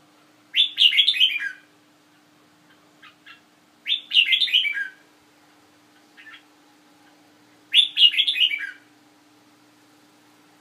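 Red-whiskered bulbul singing: three short phrases, each about a second long and made of a quick run of notes stepping downward, coming roughly every four seconds, with faint single chirps in between.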